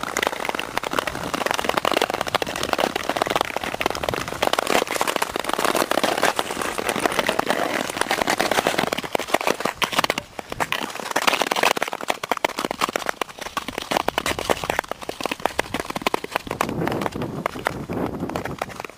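Long Nordic skate blades gliding and scraping over black ice, a dense continuous crackling hiss that eases briefly about ten seconds in.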